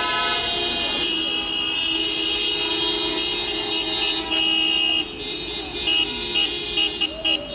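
Many car horns honking at once in celebration, long overlapping blasts held on steady notes, with a run of short toots in quick succession near the end.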